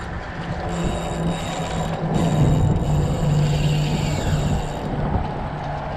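Daiwa BG spinning reel being cranked steadily, its gears whirring as line is wound back in.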